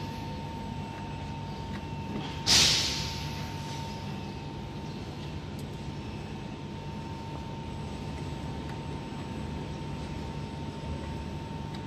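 A sudden hiss of released compressed air about two and a half seconds in, fading out over about a second, over the steady hum of the laser cutting machine with a faint steady tone.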